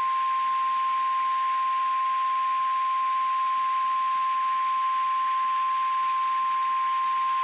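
NOAA Weather Radio 1050 Hz warning alarm tone: a single steady, unbroken tone over faint radio hiss. It signals that a warning-level alert follows, here a severe thunderstorm warning.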